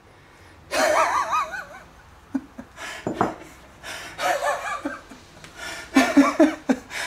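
A man laughing in several short bursts, with a few light clicks and a knock between them.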